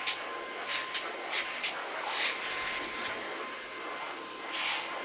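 AGARO Sapphire cordless handheld vacuum cleaner running on its high suction speed: a steady hiss with a fixed high whine, and irregular short louder rushes as it sucks up broken biscuit pieces through the bare nozzle.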